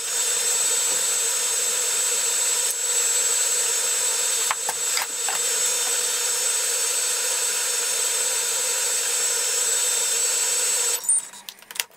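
Thermomix TM31 motor running steadily at speed 4, beating eggs and sugar with a constant whine. It cuts off abruptly about eleven seconds in as the timed cycle ends, followed by a few light clicks.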